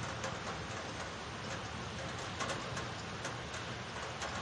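Heavy rain from a thunderstorm falling steadily, with scattered sharp taps of drops striking something close to the microphone.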